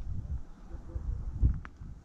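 Low rustling and handling noise, with a soft thump about one and a half seconds in and a faint click just after.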